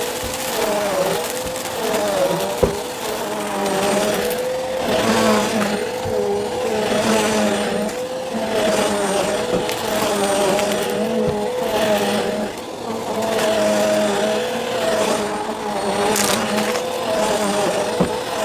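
Bissell CleanView upright vacuum running, its motor whine wavering up and down in pitch as the suction load shifts. A few sharp clicks cut through it.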